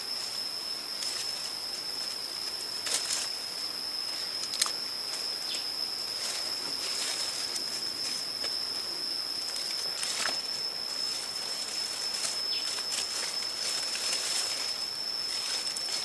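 Leaves rustling and small twigs snapping as clusters of wild berries are picked by hand from leafy branches and dropped into a wicker basket, with a few sharp snaps, the loudest a little past four seconds in. A steady high whine runs underneath.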